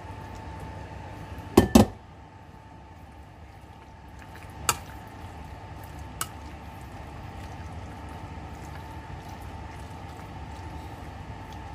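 Spoon stirring and scraping the sauced macaroni mixture in cookware, over a steady hum. There are two loud knocks close together about a second and a half in, then two lighter clinks a few seconds later.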